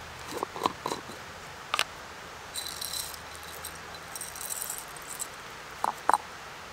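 Roasted coffee beans rattling as they are shaken out of a small glass jar into a palm, in two short spells, with a few light clicks and knocks of beans and jar; the beans are then tipped into a small wooden mortar.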